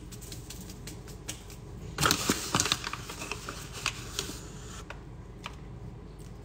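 Close crackling and clicking of something being handled near the microphone, a dense run of about two and a half seconds starting about two seconds in.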